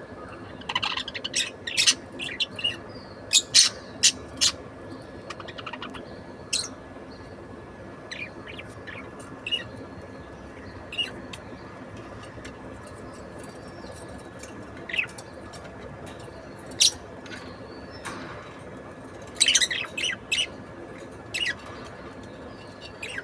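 Budgerigar chirping in short, sharp calls, scattered irregularly, with quick runs of several chirps about 3 to 4 seconds in and again near the end.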